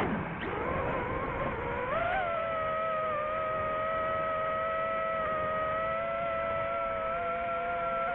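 FPV quadcopter's electric motors and propellers whining. The pitch dips sharply at the start, climbs back about two seconds in, then holds steady as the throttle stays even.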